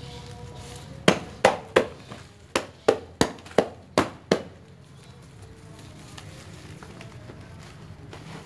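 Nine sharp knocks on a plastic flowerpot, three and then six in quick succession at about three a second: the pot being struck to loosen a root-bound Aglonema's soil ball so the plant can be lifted out.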